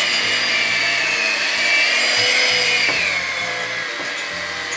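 Vitek electric hand mixer running, its beaters churning thick cocoa cake batter in a bowl. A steady motor whine that drops a little in pitch about three seconds in.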